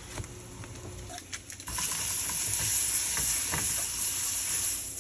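Food sizzling in a hot frying pan. The sizzle starts suddenly a little under two seconds in and stays loud for about three seconds, with light clicks of a utensil against the pan.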